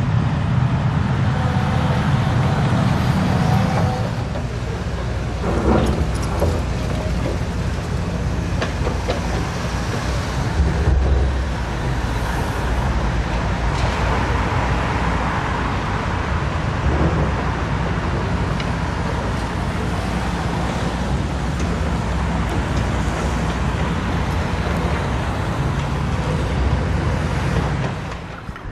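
Heavy diesel engine running steadily with a deep rumble, with scattered knocks and clatter over it.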